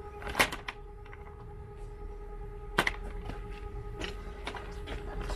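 Sharp plastic clicks and knocks as the plastic wicker-style basket holding a rescued civet is handled and its lid shut, the loudest about half a second in and again nearly three seconds in. A faint steady hum runs underneath.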